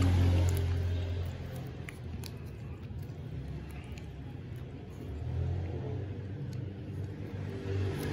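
A low rumble that swells at the start, again about five seconds in and near the end, with a few faint clicks from a plastic biscuit wrapper being handled.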